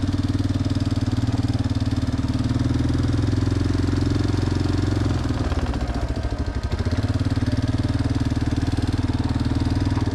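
Yamaha Big Bear 350 ATV's single-cylinder four-stroke engine running as the quad is ridden, its note dipping slightly about halfway through and picking up again.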